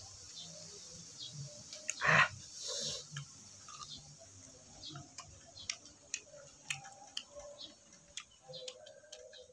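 Eating tamarind: close mouth sounds of chewing, with many small wet clicks and smacks and one loud crackle about two seconds in.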